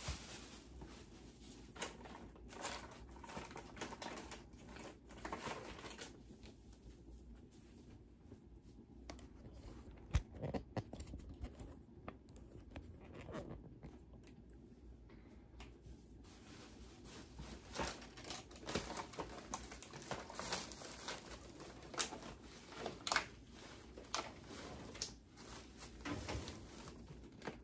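Plastic snack wrappers and bags crinkling and rustling as they are handled, in irregular bursts with scattered sharp knocks and clicks. It is quieter for a while in the middle.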